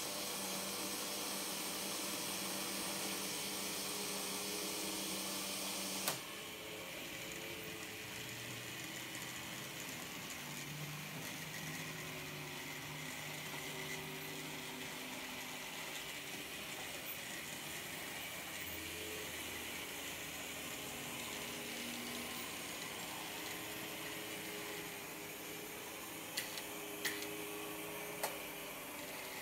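Märklin H0 model trains running under analog control: a steady small-motor hum and wheel-on-track rumble whose pitch shifts as the locomotives change speed. There is a sharp click about six seconds in, after which the noise drops. A few short clicks come near the end.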